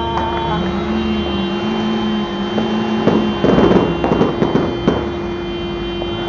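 Firecrackers crackling in a dense cluster about three seconds in and again near five seconds, over a steady hum with a lower wavering tone.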